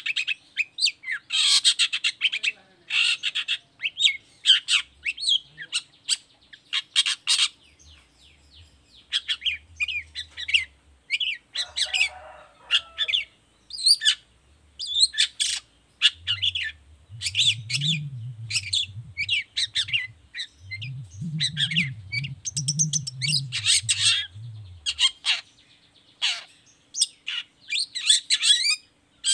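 Long-tailed shrike (cendet) singing: a fast, varied run of sharp, scratchy chattering notes and short calls packed closely together, with a brief sparser stretch about a third of the way in.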